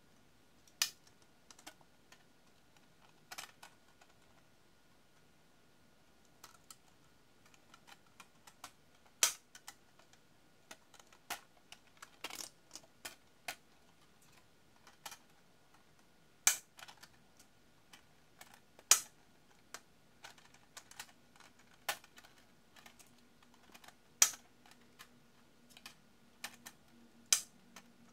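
Hard 3D-printed plastic parts clicking and snapping as folding-fan ribs are handled and fitted together: irregular sharp clicks about once a second, a few of them much louder.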